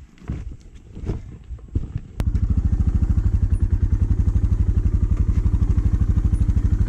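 Footsteps on loose rock, then after about two seconds a cut to a Suzuki DR650's single-cylinder engine running steadily at low revs, its firing pulses evenly spaced.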